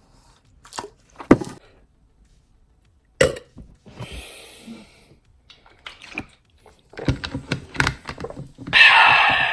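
A string of knocks and thuds from objects being handled and set down, with a short loud rushing hiss near the end.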